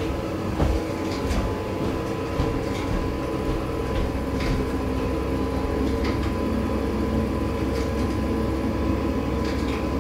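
Ariston gas boiler firing up on a call for heat from the thermostat: a steady mechanical hum with a thin high whine, and a few light clicks.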